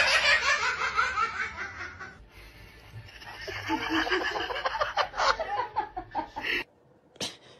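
People laughing in quick repeated bursts, in two stretches: one in the first couple of seconds and a longer one from about three seconds in, which cuts off suddenly near the end.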